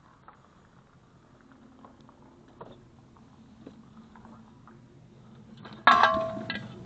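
Faint handling noise with a few light knocks, then one loud metallic clank about six seconds in that rings briefly and dies away.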